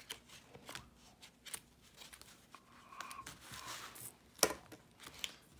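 Paper cash envelopes handled and flipped through on a tabletop: soft rustling and scattered small clicks, with one sharper tap about four seconds in.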